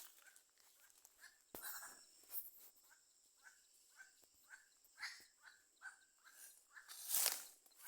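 A bird calling in a quick series of short notes, about three a second, over a faint steady insect hiss. A brief rustle comes about a second and a half in, and a louder one near the end.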